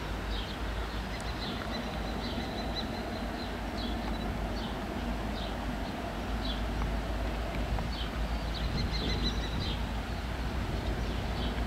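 A pair of EMD-based NGT26CW-3 diesel-electric locomotives with two-stroke engines approaching under power: a low engine rumble that slowly grows louder. Birds chirp over it about once a second.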